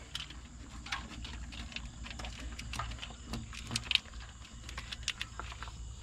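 Small irregular clicks and rustles of plastic split wire loom being handled and fitted around a bundle of wires.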